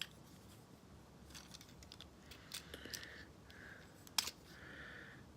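Faint clicks and scrapes of plastic action-figure parts being turned and fitted by hand, with one sharper click about four seconds in.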